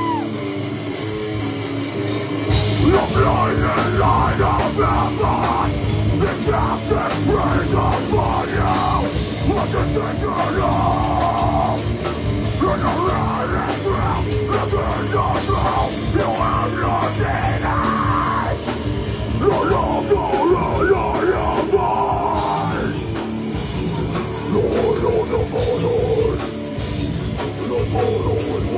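Live heavy rock band playing loud, with drums and vocals. The full band comes in about two and a half seconds in.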